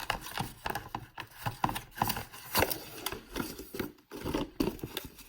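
Handling noise from unpacking flashlights: irregular rubbing, scraping and small knocks of packaging and the lights being moved about.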